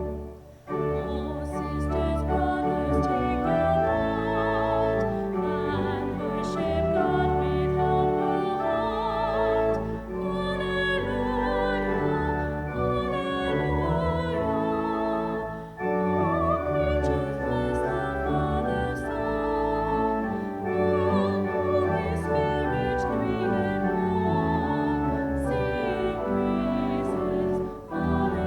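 Classical-style singing with vibrato over instrumental accompaniment, in sustained phrases with short breaks between them.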